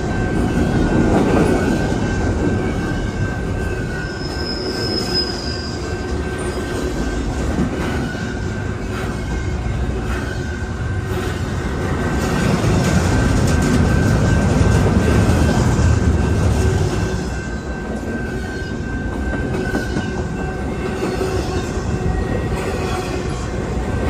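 Freight train cars of a long intermodal train rolling past, with a steady rumble of wheels on the rails that swells and eases. A thin, steady wheel squeal holds over it, with a brief higher squeal about four seconds in.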